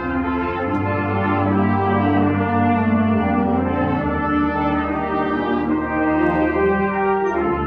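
Student wind ensemble playing, brass and woodwinds together, in held chords that change every second or so.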